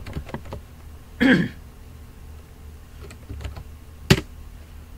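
Computer keyboard typing: a few light key clicks, then more a few seconds in, and one louder single keystroke about four seconds in as the command is entered. A brief throat sound a little over a second in.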